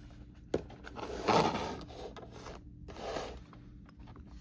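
A cardboard toy box being handled and turned over in the hands: a sharp click, then rubbing and scraping of cardboard, loudest in a stretch of about a second and a half, with a shorter rub near the end.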